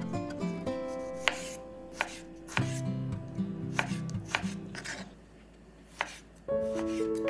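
Kitchen knife cutting cherry tomatoes on a wooden cutting board: a series of sharp taps as the blade strikes the board, about one every half second to a second, over soft background music.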